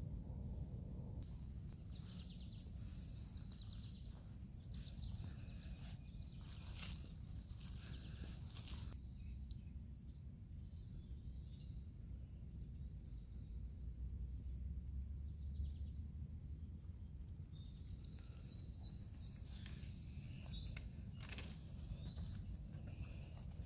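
Outdoor ambience: birds chirping and warbling at intervals over a steady low rumble, with a few faint clicks and knocks.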